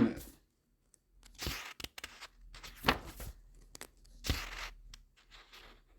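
Paper pages being turned while searching for a passage in a book: three rustling swishes about a second and a half apart, with small clicks and faint rustling in between.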